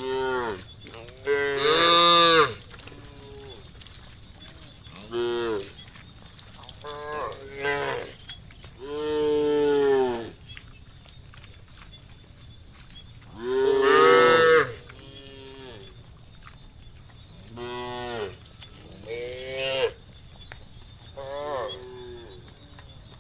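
Cattle mooing, about ten calls from several cows. Each call bends up and falls away in pitch, and the loudest come a couple of seconds in and about halfway through. A steady high-pitched hum runs underneath.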